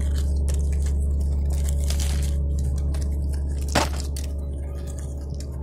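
Sunflower seeds being rubbed loose by hand from a dried sunflower head: a run of dry crackling and rustling with small clicks, the sharpest about four seconds in, over a steady low hum.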